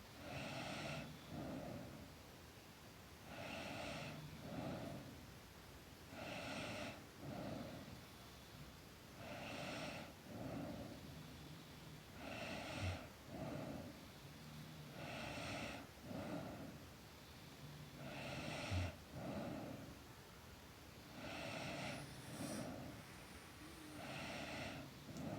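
A girl snoring in her sleep: a snore about every three seconds in a steady rhythm, each one in two short pulses.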